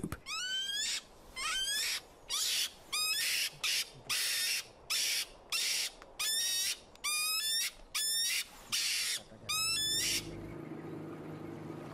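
European mink screeching in a string of about a dozen harsh calls, each with a wavering high squeal, repeating every half second or so and stopping about ten seconds in. It is distress and anger at being held and handled.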